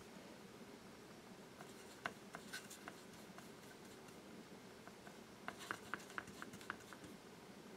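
Faint pencil strokes on paper, with light ticks and scratches about two seconds in and a busier run of them from about five and a half to seven seconds.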